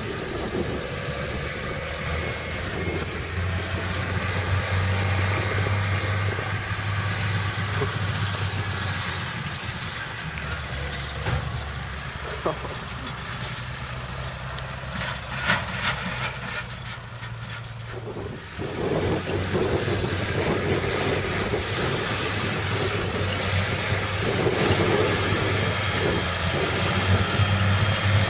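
New Holland T8020 tractor's diesel engine running steadily with a low drone while pulling a forage loading wagon over the field. The sound changes abruptly about eighteen seconds in.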